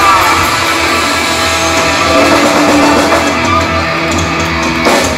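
Hard rock band playing live and loud: distorted electric guitars over bass and drums, with no singing.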